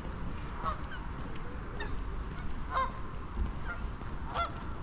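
Geese honking: a handful of short calls spaced about a second apart, over a steady low rumble.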